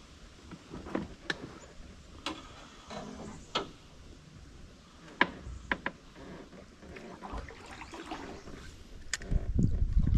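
Irregular clicks and knocks of gear being handled in a small boat, with a louder low thumping and rumble near the end.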